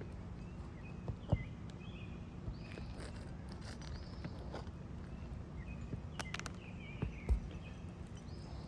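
A few sharp knocks and taps from hand tools and shingles being worked on an asphalt shingle roof, about a second in and twice near seven seconds in. Birds chirp in short calls in the background over a steady low hum.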